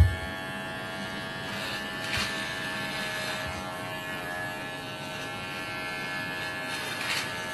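Electric hair clipper running with a steady buzz as it is run through long hair and shaves the side of a head. A low thump right at the start.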